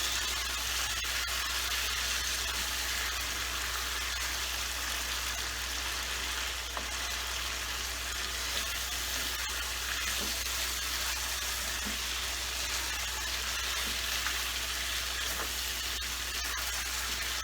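Chicken sukha sizzling steadily in oil in a pan as it cooks down dry, with a few faint ticks of a spatula being stirred through it.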